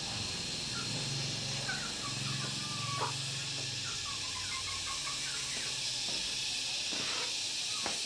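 Steady background hiss with faint, scattered chirping calls and a single click about three seconds in.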